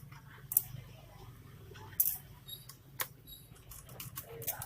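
Laptop parts and tools being handled during disassembly: a few sharp clicks and taps, about a second apart, over a low steady hum.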